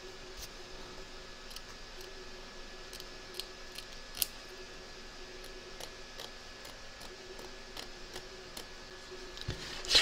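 Small embroidery scissors trimming fabric close to a stitch line in an embroidery hoop: a scattering of faint snips and clicks, one a little louder about four seconds in.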